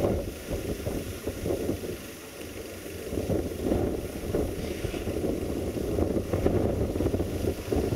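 Wind buffeting the microphone over the low rumble of an approaching LDH 1250 diesel-hydraulic locomotive.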